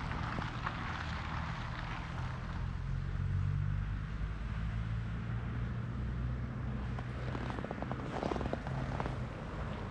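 A low, steady engine drone from an unseen motor, with footsteps on snow coming in near the end.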